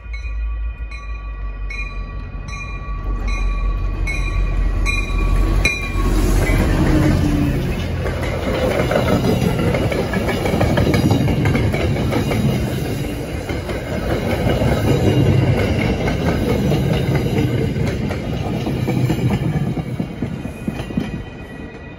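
A warning bell rings steadily, about one stroke a second, as an MBTA commuter train approaches. From about six seconds in, the locomotive and coaches pass close by at speed in a loud rumble of wheels on rails, and the noise drops away near the end as the train clears.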